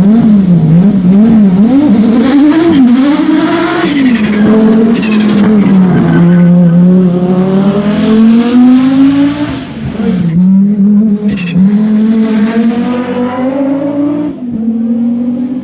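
Hill-climb race car engine at full effort: in the first few seconds the revs rise and fall quickly several times, then the engine pulls up through the gears, its pitch climbing and dropping sharply at each upshift, about three times.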